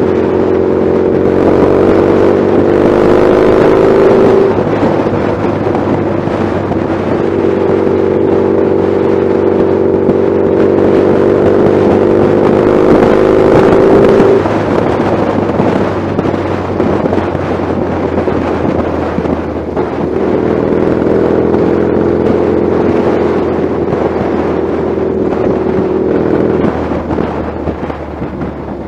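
Motorcycle engine running under way. Its note climbs slightly, then drops away about four, fourteen and twenty-six seconds in.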